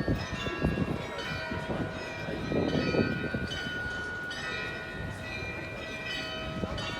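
Carillon bells of the Munich Rathaus-Glockenspiel playing a tune, new bell notes struck every second or so and ringing on over one another.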